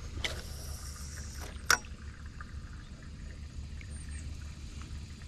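Wind rumbling steadily on the microphone, with a brief hiss lasting about a second and then one sharp click just under two seconds in, the loudest sound here.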